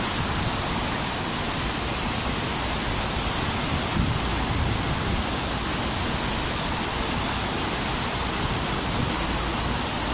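FlowRider surf simulator's pumped sheet of water rushing steadily up and over the ride surface, a constant even rush.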